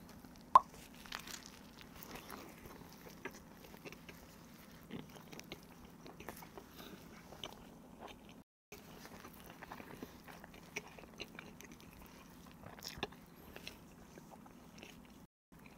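A person biting into and chewing a soft grilled ham-and-cheese toast, with faint small mouth sounds and a single sharp click about half a second in.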